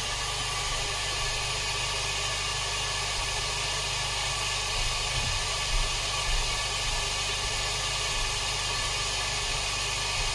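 Nitto Kohki Medo LA-80B linear air pump running steadily: a low, even mains-frequency hum with a broad hiss of air.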